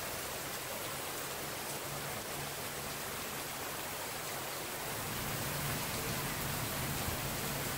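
Rain pouring down steadily on pavement and shrubs, an even hiss.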